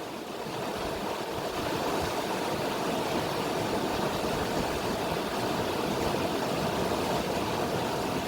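River water flowing with a steady rushing sound, growing a little louder over the first couple of seconds and then holding even.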